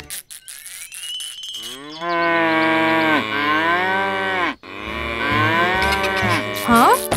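Cow mooing twice: two long lowing calls, each falling in pitch at its end. A brief sharp rising sound follows near the end.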